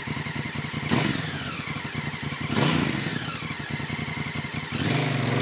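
Motorcycle engine running, revving up sharply twice.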